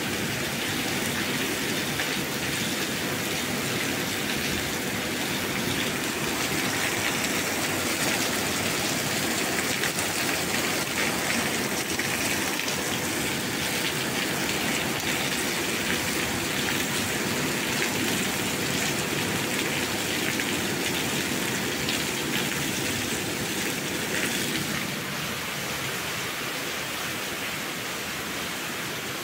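Steady rain, an even hiss that drops a little in level near the end.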